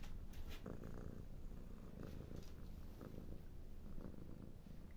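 A domestic cat purring steadily, a low continuous rumble, with a rustle of a cloth sheet being tugged near the end.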